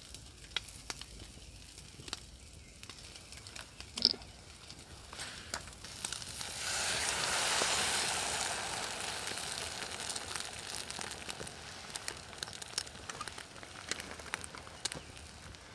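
A hot pan over a campfire sizzling, with scattered crackles and pops. About six seconds in, a loud sizzling hiss swells up and then slowly dies down: beaten eggs going into the hot pan.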